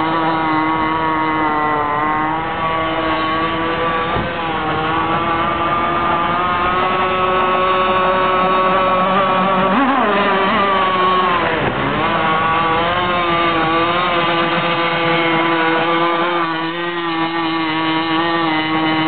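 Cracker Box boat's engine running steadily under way, its pitch wavering slightly, with a brief dip and recovery about twelve seconds in.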